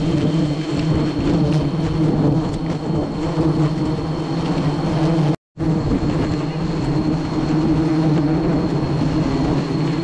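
Steady, dense buzzing drone of a large swarm of wild honeybees, with a brief cut to silence about halfway through.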